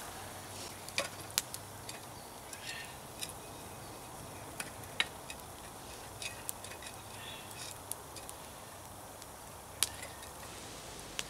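Small wood campfire crackling: scattered sharp pops, the loudest about halfway through and near the end, over a low steady background, with a few soft knocks from cooking gear handled at the fire.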